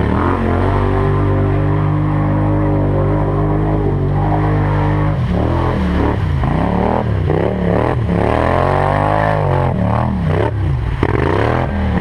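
4x4 ATV engine running at a steady pitch, then revving up and down repeatedly from about five seconds in.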